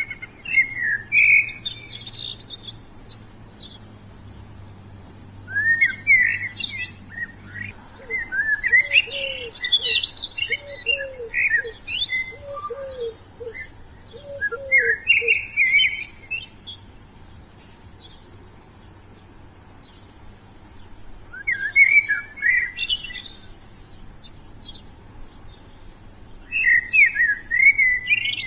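Wild songbird singing in bouts of quick, varied chirps and trills, with pauses of several seconds between phrases. In the middle, a lower-pitched series of short repeated call notes runs for several seconds.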